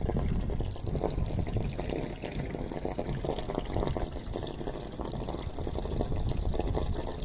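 Water gushing steadily from the open end of a plastic pipe and splashing onto a flat concrete roof slab, spreading over it. The slab is being flooded to cure the freshly cast concrete.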